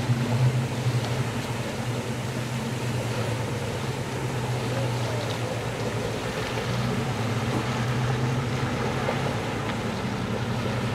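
Jet ski engine running steadily at low speed, a continuous low hum that rises a little in the second half as the craft moves off.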